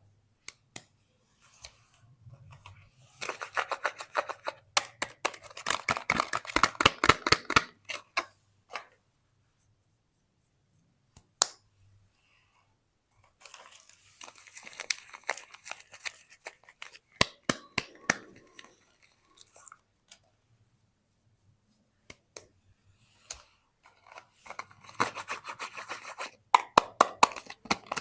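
Soap packaging being unwrapped by hand: paper and plastic crinkling and tearing, with sharp clicks, in three bouts separated by quiet pauses of a few seconds.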